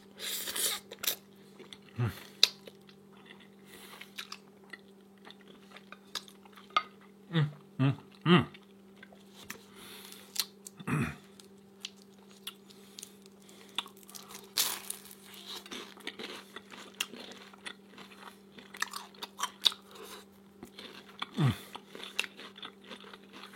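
A person chewing and biting crunchy food close to the microphone, with moist crackles and clicks, and a few short falling vocal sounds. A steady low hum runs underneath.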